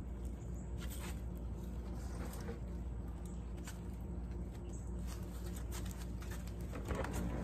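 Cloth rustling and small knocks and clicks of beekeeping gloves being pulled off and a bee smoker being picked up, over a steady low hum; the sound gets louder near the end.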